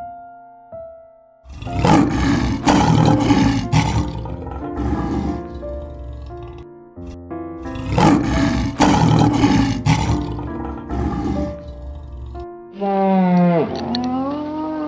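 Lion roaring in two long bouts, each a few loud full roars trailing off into shorter grunts, over background music. Near the end, a short wavering animal call.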